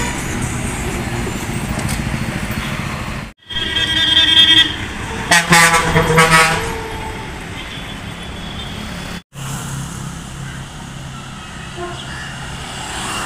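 Buses passing close at speed in road traffic, with steady engine and tyre noise. A bus horn gives a loud blast of several tones about three and a half seconds in, then a longer horn with wavering tones from about five to six and a half seconds in. The sound cuts out sharply twice, around three and a half and nine seconds in.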